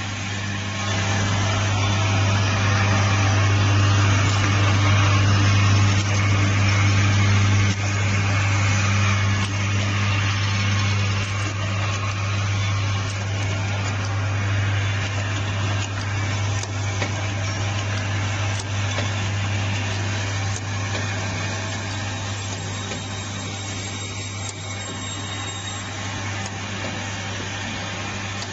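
Turntable filling and capping machine running: a steady low hum under a continuous mechanical noise, with a light click now and then.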